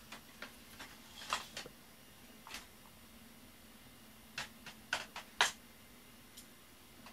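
Cat grooming at close range: a series of short, irregular wet clicks from licking, bunched into two flurries, over a faint steady hum.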